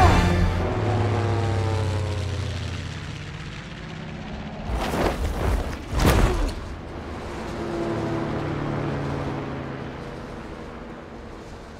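B-17 bomber's piston engines droning and fading away with a falling pitch. Two loud rushes of noise come near the middle, then the engine drone swells again briefly and fades out.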